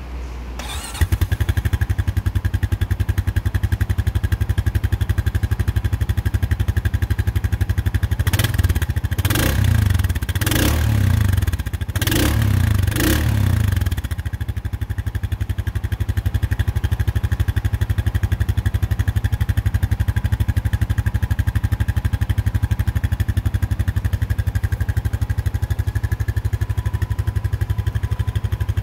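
Honda Rubicon 520's single-cylinder engine starting on its stock exhaust and catching about a second in. It settles into a steady idle, gets a run of quick throttle blips between roughly 8 and 14 seconds, then drops back to idle.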